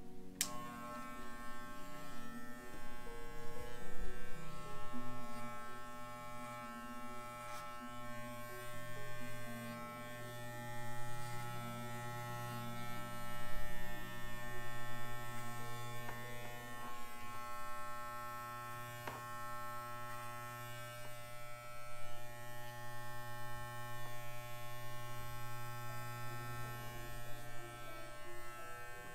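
Corded electric pet clippers buzzing steadily as they trim the fur on a Miniature Schnauzer's head and neck; the buzz comes on at the very start.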